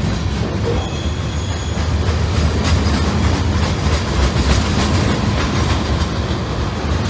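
Freight cars rolling past: a steady rumble of steel wheels on rail with repeated clicking over the rail joints, and a brief high-pitched wheel squeal about a second in.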